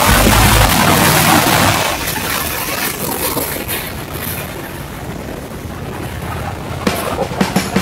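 Wind and road noise from a Harley-Davidson Road King under way, rushing over the microphone, loudest in the first two seconds and then easing off, with a few sharp clicks near the end.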